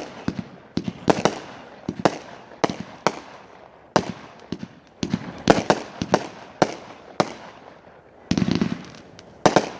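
World Class 'Gorilla Warfare' 500 gram consumer fireworks cake firing: a steady run of sharp reports, about one or two a second, each trailed by crackle.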